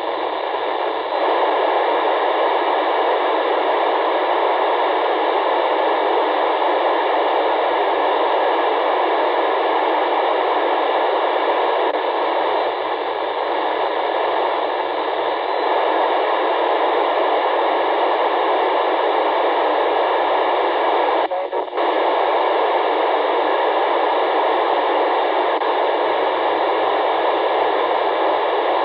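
Steady hiss from an FM radio receiver tuned to the SO-50 amateur satellite's downlink, with no voice coming through. The hiss dips briefly about two-thirds of the way through.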